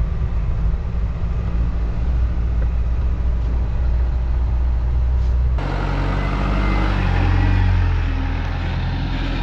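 Isuzu NPS truck's diesel engine running as it drives slowly along a narrow bush track, a steady low drone heard from inside the cab. About halfway through the sound cuts to outside the truck, where the engine note swells briefly.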